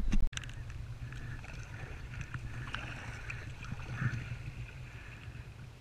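A brief loud knock at the very start, then a kayak being paddled: paddle blades dipping and water swishing and lapping along the hull.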